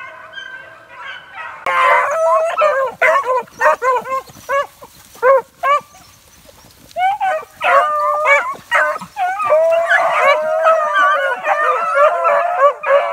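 A pack of beagles baying on a rabbit's trail, several voices overlapping, with a short lull about five seconds in before they open up again.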